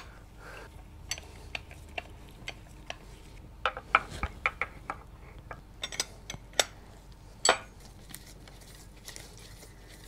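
Combination wrenches clinking and ticking against the metal body and centre adjuster nut of an adjustable front upper control arm as the reverse-threaded adjuster is turned. The sharp metallic clicks come irregularly, busiest about four seconds in, with the loudest near the three-quarter mark.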